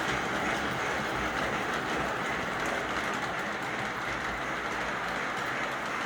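O gauge model train running on its track: a steady whirring of the locomotive's electric motor and wheels on the rails.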